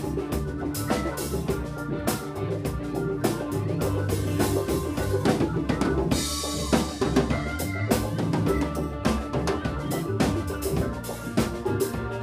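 Live band playing an instrumental passage: drum kit with kick and snare hits on a steady beat over held bass notes, with a cymbal crash ringing out about halfway through.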